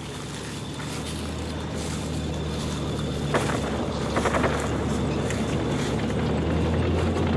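Low, steady droning hum that slowly grows louder, with a few short clicks about three and four seconds in.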